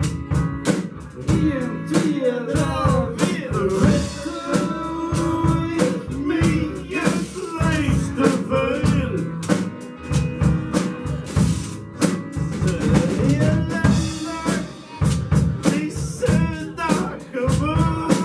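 Live band playing a song: a man singing into a microphone over acoustic guitar, with a washboard played as the rhythm, giving a steady stream of sharp clicks.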